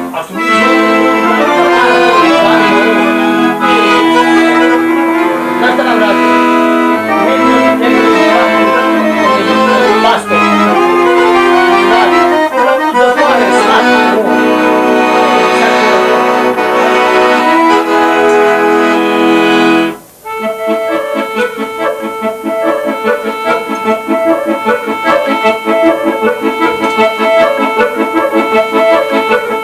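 Chromatic button accordion playing a melody over held chords. About two-thirds of the way through the sound breaks off abruptly and resumes as a fast passage of rapidly repeated notes.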